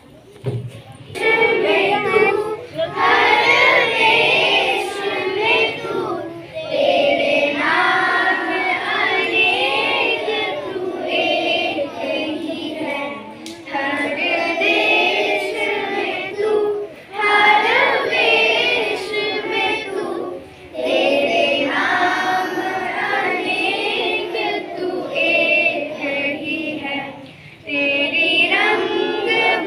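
A group of children singing together in phrases with short pauses between them, starting about a second in.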